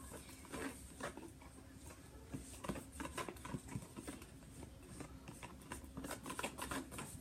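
Spoon stirring glue and baking soda in a bowl: faint, irregular clicks and scrapes of the spoon against the bowl.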